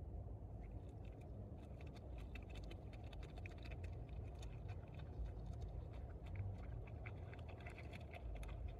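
A beaver chewing leafy twigs: a run of rapid, small crunching clicks, over a steady low rumble.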